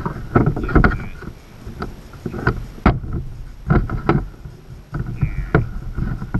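Hard plastic knocks, clicks and rattles as security cameras and a plastic packaging tray are handled and set down, with rustling between the knocks.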